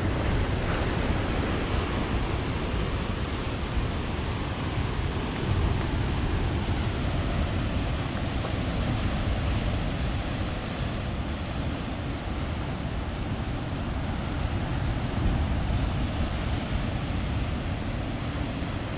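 Ocean surf washing ashore: a steady rush of breaking waves with wind rumbling on the microphone, swelling briefly about five seconds in and again near fifteen seconds.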